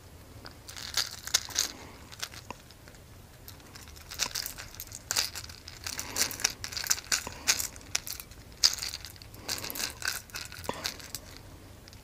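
Irregular crinkling and rustling from hands handling a freshly caught chain pickerel, in a run of short crackly bursts from about a second in to near the end.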